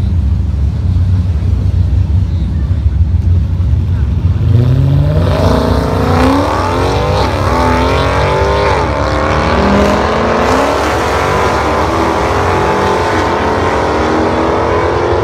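Drag-racing cars rumbling at the starting line, then launching about four and a half seconds in. The engines climb in pitch, drop twice at gear shifts, and climb again as the cars accelerate down the strip.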